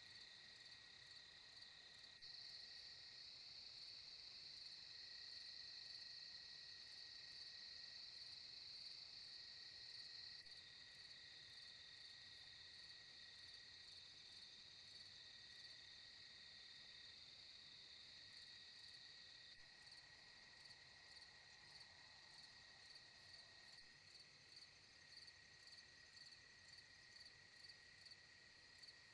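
A faint, steady night chorus of insects trilling high. The pitch and level change abruptly a few times, and near the end the trilling comes in even pulses.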